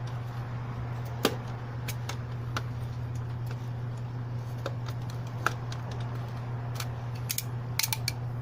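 Irregular sharp snips and clicks of a hand cutter working through the plastic knockout tabs of a sprinkler controller case, over a steady low hum.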